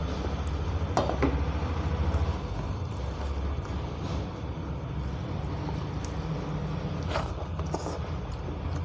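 Fingers mixing dal and rice on a steel plate, with a couple of sharp clinks about a second in and again near the end as the bowl and plate are knocked, over a steady low rumble that is strongest in the first two seconds.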